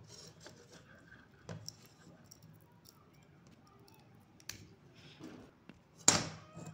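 Faint clicks and scrapes of metal tweezers working at the LED strip inside a plastic ceiling panel light ring, with one loud clatter near the end.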